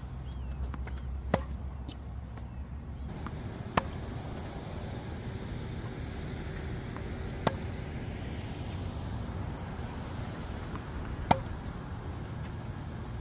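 Tennis racket striking the ball in a rally: four sharp, loud hits a few seconds apart, with fainter pops between them, over a steady background hum.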